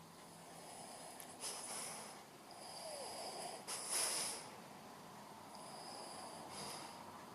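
Shih Tzu snoring in its sleep: several breathy snoring breaths in a row, the loudest about four seconds in.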